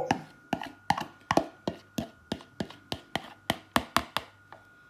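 A fork tapping on a bowl, about fifteen sharp, uneven taps at roughly three a second, as couscous is knocked off it into the bowl; they stop shortly before the end.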